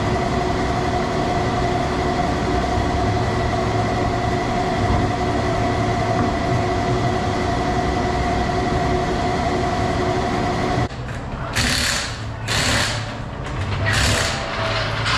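A steady droning noise with a few held tones cuts off suddenly about eleven seconds in. Then come four short bursts of a pneumatic impact wrench running the lug nuts onto a car wheel.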